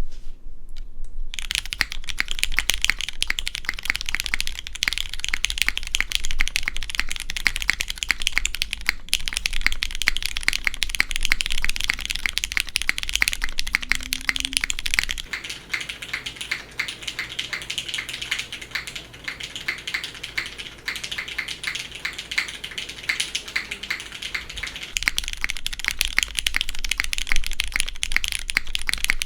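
Continuous typing on a custom mechanical keyboard with a polycarbonate case, aluminium plate and lubed Cherry MX Black linear switches under GMK keycaps: a dense stream of keystroke clacks. It starts about a second and a half in and is a little softer through the middle stretch.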